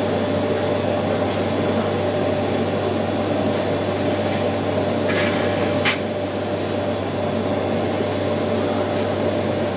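Fume-extraction fan running steadily, an even whooshing hiss over a constant low hum, with a brief higher hiss about five seconds in.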